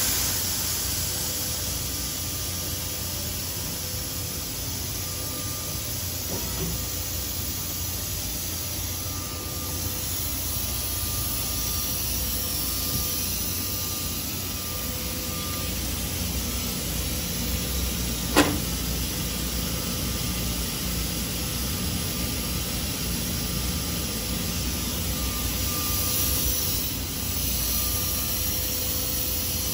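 Steady workshop background noise, an even hiss over a low hum from fans and machinery, with a single sharp click about eighteen seconds in.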